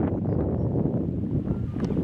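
Wind buffeting the camera microphone: a dense, uneven low rumble that rises and falls. A few faint short high chirps sound over it.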